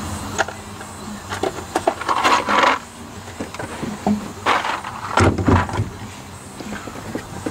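Small metal parts rattling and clicking in two bursts of clatter, as wire splice connectors are rummaged through and handled.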